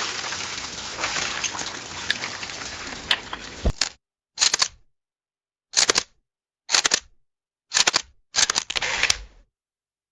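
A hiss fading away over the first four seconds, then camera shutter clicks: five short bursts of clicking about a second apart.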